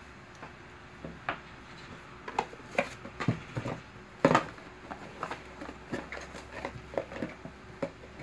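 Irregular light taps and knocks, a dozen or so spread over several seconds, the loudest about four seconds in; handling noise close to the microphone.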